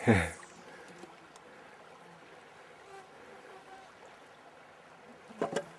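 A short, loud whoosh falling in pitch as a long fishing rod is cast. After it comes the quiet, steady rush of a shallow river, and a brief clatter near the end.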